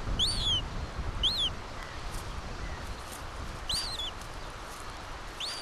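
Common gull chicks peeping with short, high cheeps that rise and fall, four in all, a second or more apart, over a faint low rumble.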